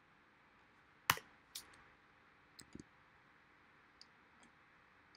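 Computer mouse clicking: a few short, sharp clicks spaced unevenly, the loudest about a second in and a quick double click near the three-second mark, over a quiet background.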